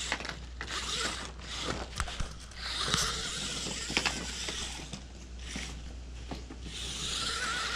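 Toy RC stunt car running in two spurts, its small electric motor whirring with clicks and clatter.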